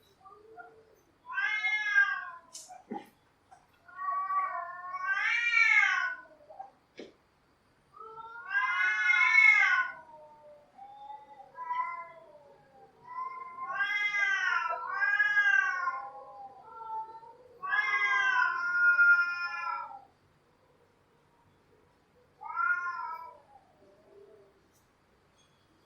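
Cats yowling: a string of long, wavering caterwauls that rise and fall in pitch, several overlapping or following one another, with a short gap before a last brief yowl near the end.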